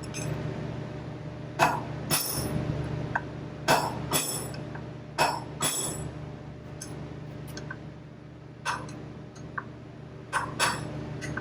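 Hammer blows knocking a seized bearing race out of a John Deere 24T baler's cast wheel hub: about nine sharp metal-on-metal strikes with a brief ring, loosely in pairs, over a steady low hum.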